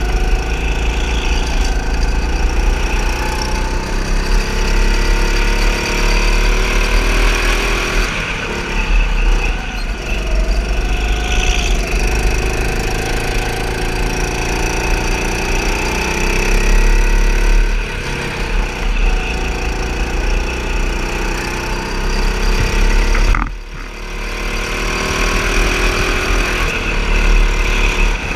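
Go-kart engine running under the driver, its pitch rising and falling as the kart speeds up and slows for corners, over a heavy low rumble, with tyre squeal on the track surface. The sound drops briefly a few seconds before the end, then picks up again.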